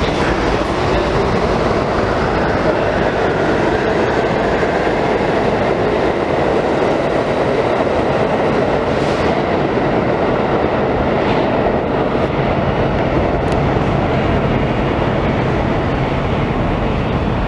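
New York City subway B train pulling out of the station, a steady rumble of wheels and motors on the rails that carries on loud as the train runs into the tunnel.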